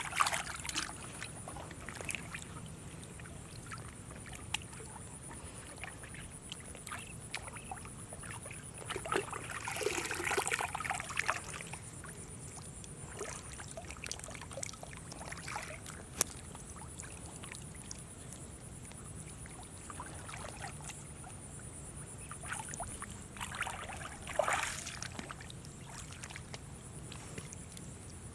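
Water splashing and sloshing in a few short bursts, the biggest about ten seconds in and another near twenty-four seconds, over a steady background hiss with a thin high whine.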